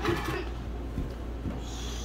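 Plastic toy dishes and play-kitchen pieces being handled: a scraping rustle at the start, light knocks about a second in and again half a second later, and a soft hiss near the end.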